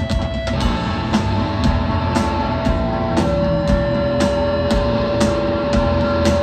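Hardcore punk band playing live: distorted electric guitars and a bass over a drum kit hitting about twice a second, with one long guitar note held over the top. The full band comes in shortly after the start.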